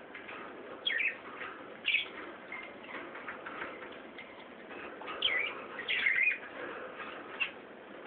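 Caged budgerigars chattering, with short sharp chirps over a steady warble; the loudest chirps come in a cluster about five to six seconds in.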